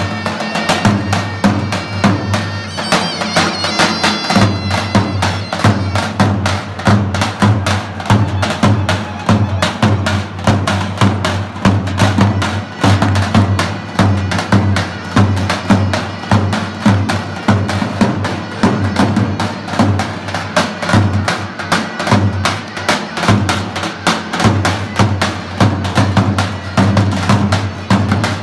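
Davul zurna music: two davul bass drums beaten in a fast, steady rhythm, with the shrill reed melody of a zurna over them, clearest in the first few seconds.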